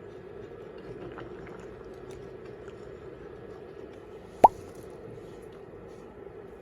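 A single short liquid plop with a quick upward sweep in pitch, about four and a half seconds in, over a steady faint low hum.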